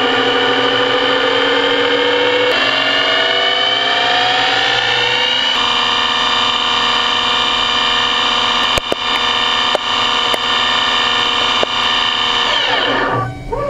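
CNC turn-mill machining centre spinning a steel crankshaft while a turning tool cuts it: a whine of several steady tones that rises in pitch a few seconds in, then holds steady with a few sharp clicks, and winds down in a falling glide near the end as the spindle slows.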